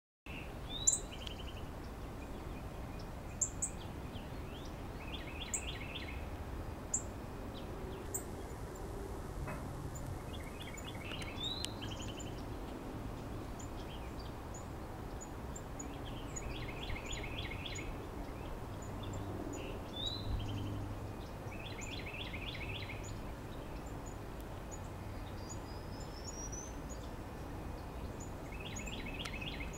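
Northern cardinal singing: about six phrases spread across the time, each a clear downslurred whistle followed by a quick run of repeated notes, over a steady background hiss, with short high chips in between.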